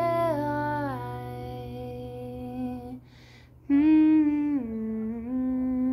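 A woman's voice holding long, wordless sung notes. There is a breath about three seconds in, then another held note that drops in pitch and stays there.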